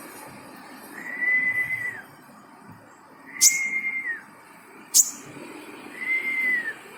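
A kept kolibri (sunbird) calling: three long, steady whistled notes, each about a second and dropping at the end, with a few short, sharp high chirps between them.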